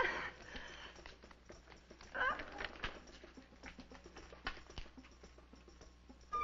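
Faint clicks and crackle of an old optical film soundtrack over a low hum, with one short vocal cry sliding up and down in pitch about two seconds in.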